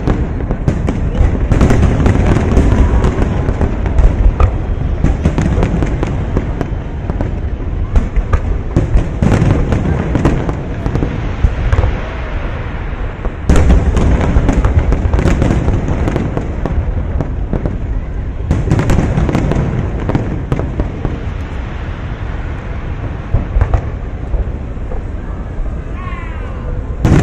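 Aerial fireworks shells bursting in a rapid, near-continuous string of booms and crackles, with louder volleys about halfway through and again a few seconds later.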